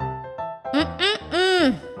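Light background music for a children's cartoon, with held notes, joined about a second in by two short wordless vocal sounds, the second rising and falling in pitch.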